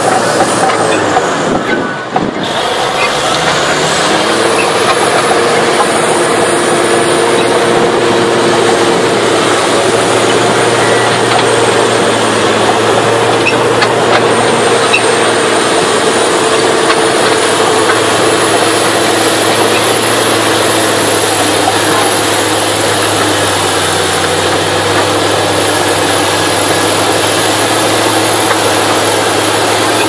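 Komatsu D375A-5 crawler bulldozer's diesel engine running hard, a loud steady drone with a thin high whine over it. The sound dips briefly about two seconds in and then carries on.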